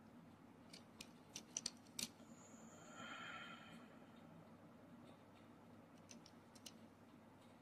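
Near silence with a few faint, light clicks and taps from a small diecast toy car being turned over in the fingers, its plastic base and wheels knocking against fingertips and nails, plus a short soft hiss about three seconds in.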